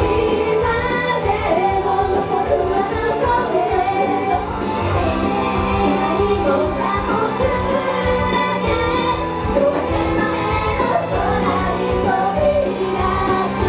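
A Japanese idol pop song performed live: female voices singing over a backing track with a steady drum beat and held bass notes.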